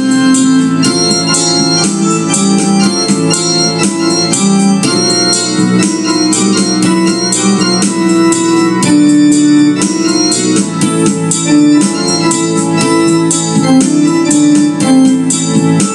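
Yamaha electronic keyboard playing an instrumental passage of sustained chords with a moving melody over them.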